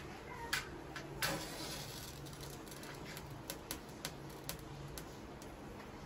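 A match struck on a matchbox: a light first scrape about half a second in, then a louder scratch and brief hiss as it flares a little over a second in. A few faint ticks follow as the match is held to an oil lamp's wick.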